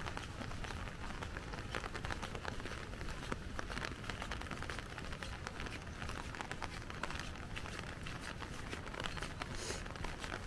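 Rain falling on an umbrella: a steady, dense run of small drops tapping on the fabric over an even hiss of rain.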